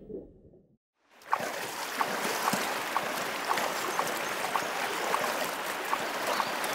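Rushing river rapids: a steady wash of fast-flowing water that starts about a second in, after a brief silence, with short light ticks about twice a second.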